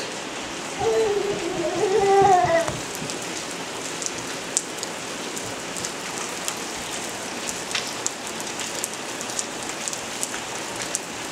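Steady rain falling on a wooden deck, a continuous hiss with many small drops ticking. About a second in, a short high voice is heard for around two seconds.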